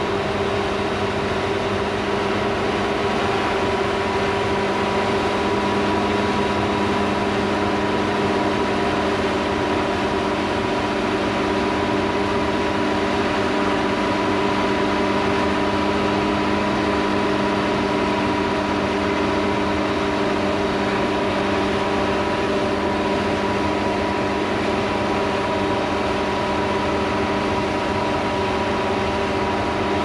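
A drone's propellers humming steadily, several constant tones over an even whir that does not change.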